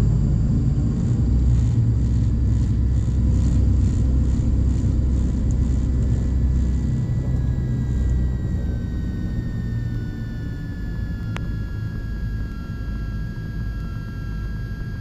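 Piper Aerostar twin-engine plane rolling out on the runway after landing, heard from the cockpit: a loud low rumble of engines and wheels that eases about halfway through as the plane slows, while a whine slowly falls in pitch. A sharp click about 11 seconds in.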